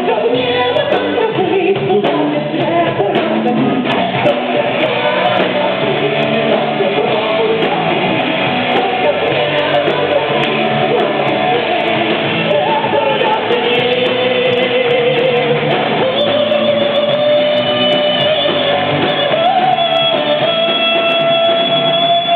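Live metal band: a woman sings long held notes over electric guitars and drums, holding one long note near the end.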